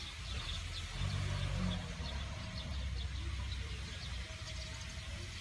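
A steady low motor rumble, a little louder from about a second in, with faint bird chirps above it.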